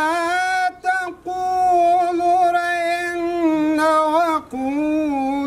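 A man reciting the Quran in melodic tajweed style, drawing out long held notes with wavering ornaments. He breaks off briefly about a second in and starts a new phrase after about four and a half seconds.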